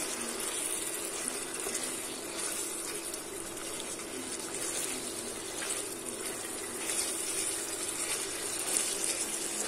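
Thick duck curry sizzling in its oil in a stainless steel pot as it is stirred with a wooden spoon, a steady hiss with faint scraping.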